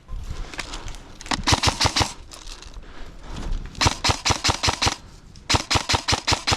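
Airsoft replica firing three bursts of rapid shots, each about a second long at roughly ten shots a second.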